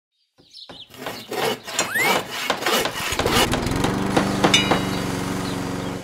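A montage of play sound effects: scattered knocks and taps, with a short rising whistle about two seconds in. From about three seconds a steady mechanical hum sets in, with clinks and taps over it.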